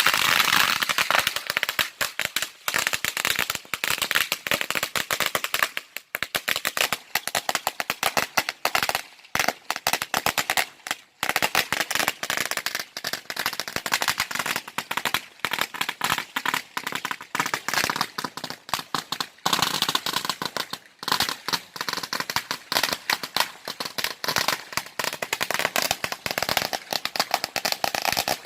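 A long string of firecrackers going off as a continuous rapid run of sharp bangs, with a few brief breaks.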